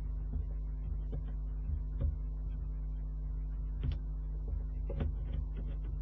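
Steady electrical mains hum on the nest-box camera's audio line, with a few faint, scattered clicks and taps over it.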